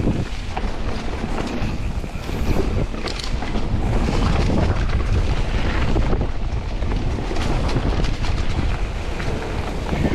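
Loud wind buffeting the microphone, with a low rumble and scattered clicks and knocks through it.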